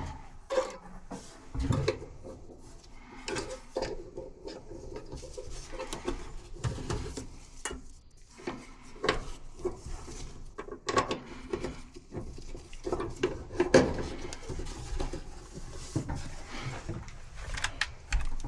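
Irregular clicks, knocks and light clatter of metal and plastic dryer parts and hand tools being handled during the repair, with a low hum underneath.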